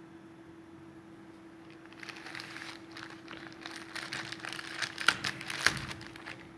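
Plastic protective wrapping crinkling and crackling as it is handled and peeled off a new laptop keyboard, starting about two seconds in, with two sharper clicks near the end.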